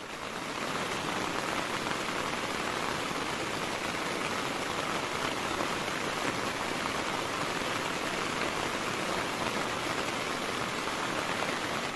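Heavy rain falling steadily on the shelter's fabric and the soaked ground beside it, swelling up over the first second and then holding even.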